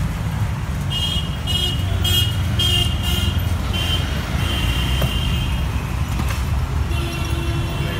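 Steady road-traffic rumble with a vehicle horn honking high-pitched in a string of short toots, then a longer blast near the end.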